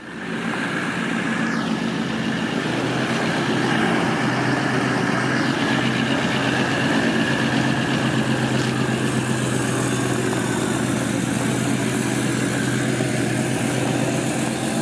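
Toyota LandCruiser 76 Series diesel engine running steadily at low revs as the wagon moves off.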